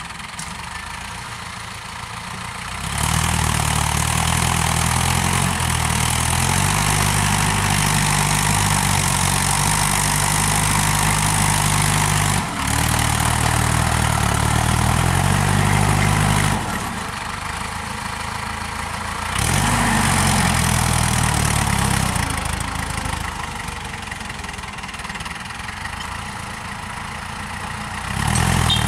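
Mahindra Arjun Novo 605 tractor's diesel engine running steadily under load as it pulls a tine cultivator through the soil. The engine is loud for long stretches and fainter in between.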